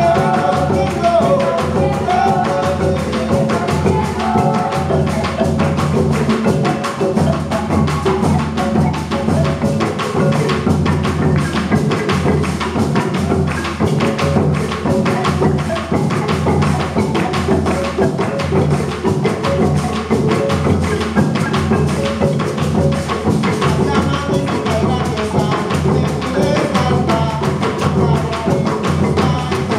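Live Colombian Pacific marimba music: a marimba de chonta played over cununo hand drums and a bombo bass drum in a steady, driving rhythm.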